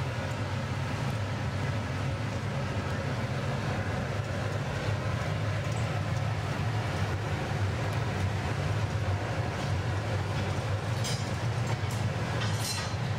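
Steady low roar of a glassblowing studio's furnaces and extraction fans, with a few faint clicks near the end.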